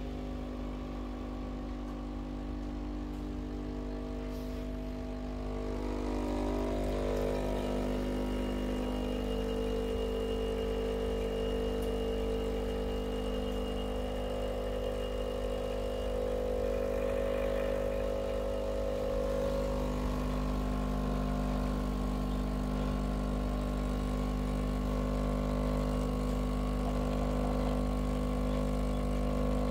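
Breville Barista Pro espresso machine's pump running steadily while it pulls a lungo shot. The hum holds a fixed pitch and gets a little louder about six seconds in.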